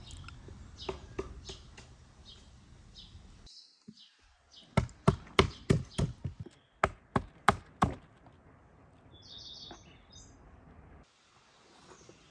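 A quick run of about a dozen sharp knocks on a wooden board, three or four a second, as plums are struck and crushed on the board to split them. A short bird chirp follows.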